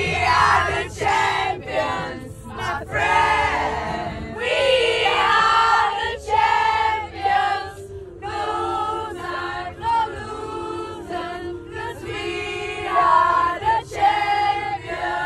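A group of voices singing together in phrases with short breaks, over a crowd's low hubbub.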